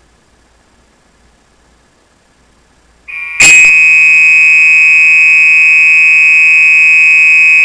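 Apartment building fire alarm going off during a scheduled test: a loud, steady, high-pitched tone starts about three seconds in and holds without a break.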